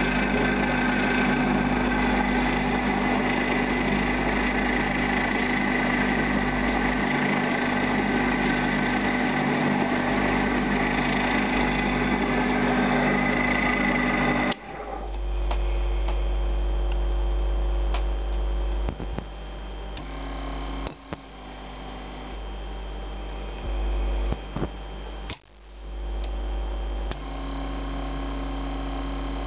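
Universal-3 benchtop lathe running under its electric drive, a steady mechanical whine with several pitched tones. About halfway through it cuts off suddenly, leaving a lower electric hum broken by a few clicks and shifts in level.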